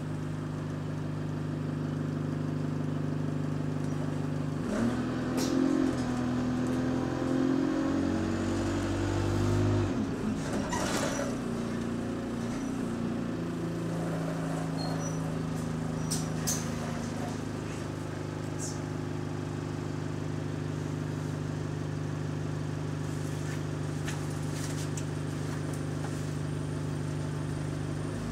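Bus engine heard from inside the cabin, idling, then pulling away about five seconds in with its pitch climbing for about five seconds. It drops back with a short hiss, then settles into a steady idle again.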